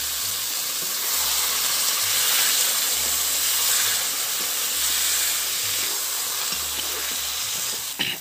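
Water splashed into hot oil and masala in a kadai, sizzling and hissing hard as a slotted spoon stirs the fried eggs through it. The hiss swells about a second in and eases off near the end.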